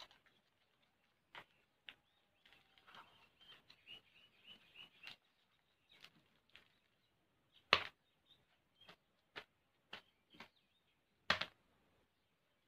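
Fresh banana leaves rustling and crackling in short bursts as a leaf-wrapped parcel is folded and tied with string, with two sharp loud crackles, the second near the end. A few quick high chirps sound a couple of seconds in.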